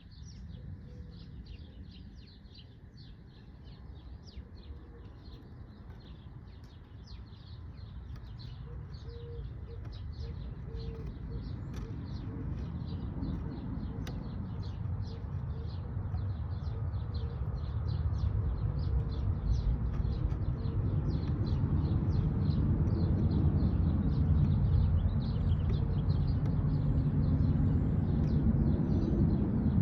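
Birds chirping in quick, dense, high-pitched calls, while a low rumble grows steadily louder from about a quarter of the way in until it dominates near the end.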